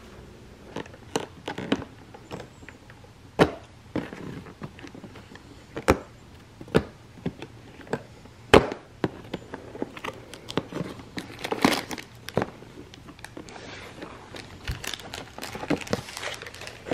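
Hands handling advent calendars and their wrapped treats: scattered taps, knocks and clicks, with crinkling of paper or plastic packaging about eleven to thirteen seconds in.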